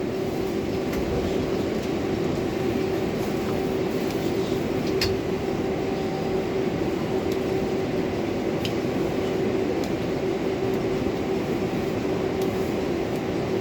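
R142A New York subway car running between stations, heard from inside the car: a steady rumble of wheels on rail under a constant hum, with a few light clicks.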